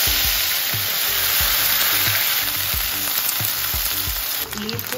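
Sun-dried Bombay duck fish frying in smoking-hot mustard oil in a kadai: a loud, steady sizzle as a metal ladle stirs the pieces, easing a little near the end.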